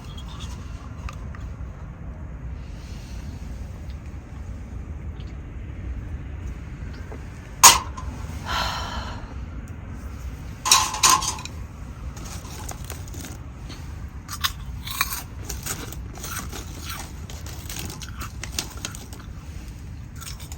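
Eating from a heavy iron pan dish: a spoon clinks and scrapes against the pan, with chewing in between. There are two sharper clinks, about 8 and 11 seconds in, and a run of lighter taps later, over a low steady rumble.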